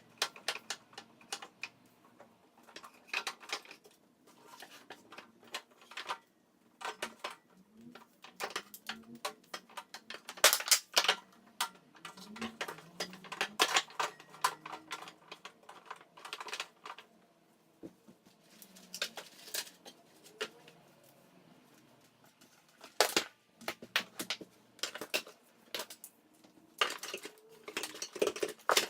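Welding tools and accessories being set down and arranged on the wooden shelves of a cart: irregular clicks, knocks and clatter of hard objects, with short pauses between handlings.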